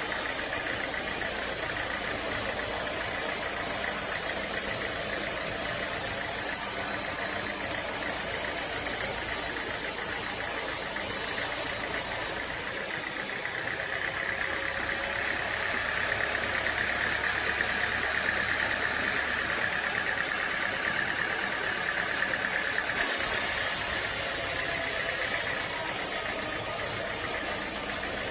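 Engine-driven sawmill machinery running steadily. The sound changes abruptly twice, about 12 seconds in and again about 23 seconds in.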